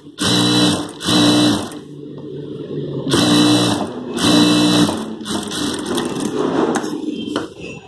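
Industrial sewing machine stitching a quarter-inch seam through cotton blouse fabric, running in four short bursts of under a second each, with a lower steady hum between the runs.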